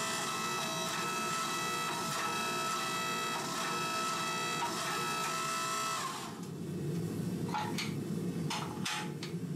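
Hydraulic forging press running with a steady, many-pitched machine whine while its dies squeeze a white-hot Damascus billet to forge-weld the layers. About six seconds in the whine gives way to a lower hum, with a few brief knocks or scrapes near the end.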